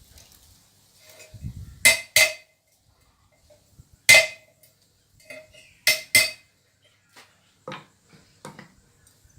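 Hammer striking steel tongs on an anvil to tighten the rivet: sharp metallic blows that ring, two close together, then one, then another pair, followed by a couple of lighter taps near the end.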